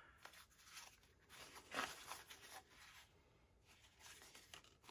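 Faint rustling and scraping of a waxed cotton tin cloth wallet being handled and unfolded in the hands, with one slightly louder rub about two seconds in.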